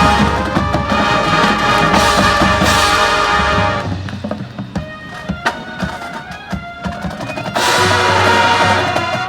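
High school marching band playing its field show. Full brass and drums play for the first few seconds, then a quieter stretch of struck percussion notes follows, and the full band comes back in near the end.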